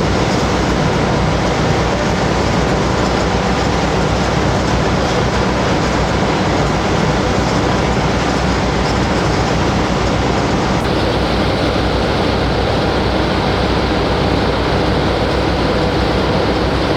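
Steady, loud rumbling and rushing noise inside a Panama Canal lock chamber as it fills quickly with water, with a tug moored alongside the boat.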